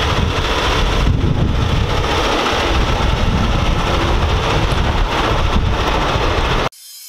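Heavy-duty wrecker's big diesel engine running loud and rumbling close by as the truck moves off, cutting off abruptly near the end.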